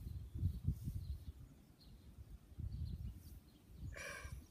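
Uneven low rumble on the microphone, with faint bird chirps in the background and a short vocal sound, like a murmur, about four seconds in.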